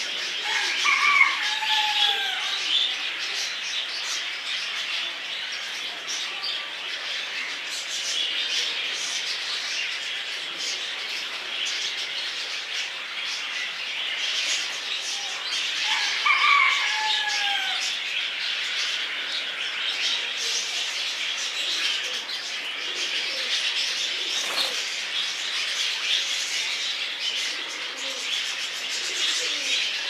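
Many small birds chirping continuously, with a louder call of a few short, falling notes heard twice: near the start and again about halfway through.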